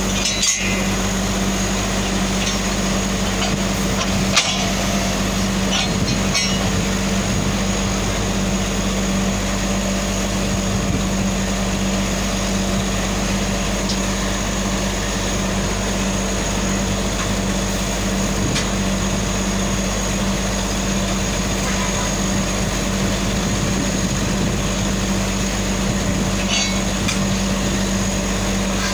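Truck-mounted borehole drilling rig running under load, its engine and air compressor giving a loud, steady drone with a low hum, as compressed air blows rock dust out of the hole. A couple of sharp metallic knocks come near the start and again about four seconds in.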